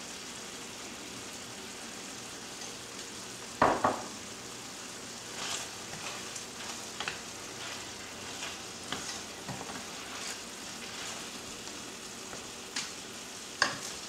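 Chicken, apple and prune stew in a cream sauce sizzling as it reduces in a stainless steel sauté pan, a steady low sizzle throughout. A sharp knock comes a little under four seconds in, then a run of light scrapes and clinks as a spoon stirs the pan.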